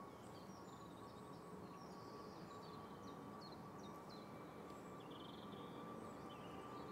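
Faint outdoor ambience: small birds chirping in short, repeated high calls over a low, steady rumble with a thin steady whine. The rumble grows slightly louder near the end.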